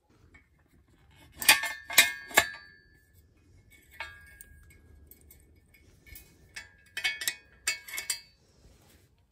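Steel car jack stand being set: metal clinks and clanks as its ratcheting arm is raised and the locking pin put in, each ringing briefly. A cluster of three clanks comes about a second and a half in, one about four seconds in, then a rattling run of clinks near the end.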